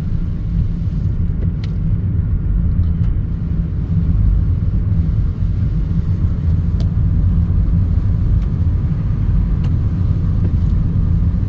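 Steady low rumble of a car being driven, engine and road noise heard from inside the moving car, with a few faint clicks scattered through.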